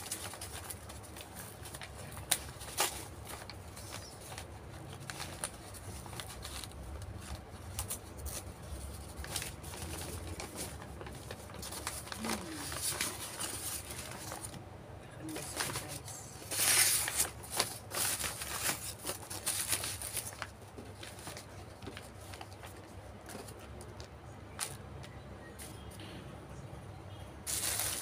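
Brown food-wrapping paper crinkling and rustling as a paper-wrapped rice-and-chicken meal is unfolded by hand, in irregular bursts, loudest about 17 seconds in and again near the end.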